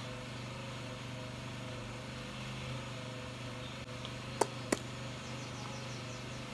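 Steady low background hum of room noise, with two short sharp clicks about half a second apart, about four and a half seconds in.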